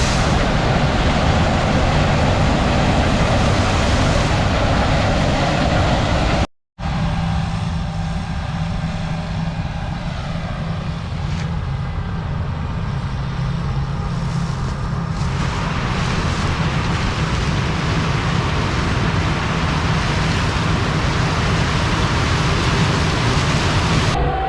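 Tractor engine running steadily under load, a loud low drone with mechanical noise over it; it drops out for a split second about six and a half seconds in, then carries on.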